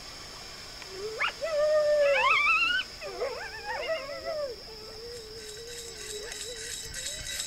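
Coyote howling: a quick rising yelp about a second in, then a loud howl that climbs in pitch, a cluster of overlapping wavering yips and howls, and a fainter, lower wavering howl that trails on.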